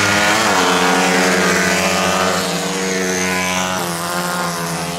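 Two small single-cylinder CG-class race motorcycles running hard through a curve. Their engine note dips briefly near the start, then holds high and steady as they power out of the bend.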